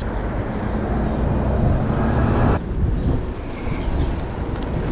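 City bus passing close by in traffic: a low engine rumble with road noise, and a loud hiss that cuts off suddenly about two and a half seconds in.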